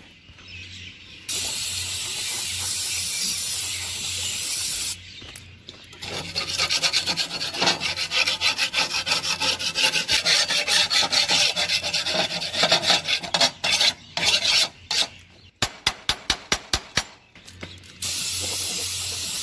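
Aerosol spray can hissing for a few seconds, then rapid rasping strokes scrubbing at metal, then a few scattered clicks. Near the end the spray hisses again, penetrating lube being applied and left to sit on the mower deck hardware.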